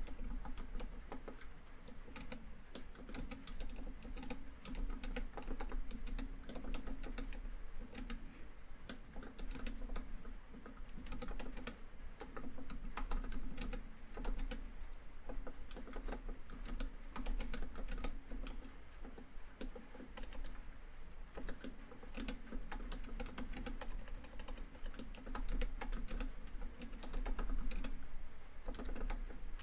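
Continuous quick, irregular typing on a laptop keyboard, over a steady bed of rainfall on a tin roof.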